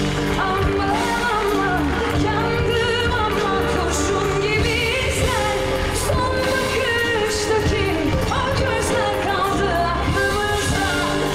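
A woman singing a slow song in Turkish into a microphone, her voice gliding and wavering between notes, over live band accompaniment with sustained low bass notes.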